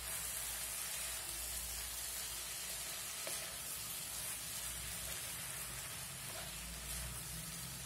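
Spinach, potatoes and onions sizzling in oil in a kadhai as a spatula stirs them: a steady, even hiss.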